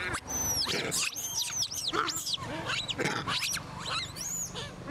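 Long-tailed macaques calling: a run of short, high-pitched squeals that rise and fall in pitch, several a second and often overlapping.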